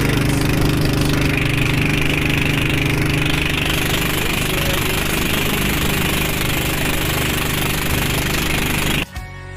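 Motorboat engine running steadily while under way, cutting off abruptly near the end.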